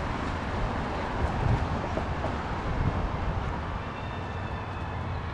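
Street traffic at an intersection: cars driving past with a steady low rumble. A faint, distant siren starts wavering in near the end.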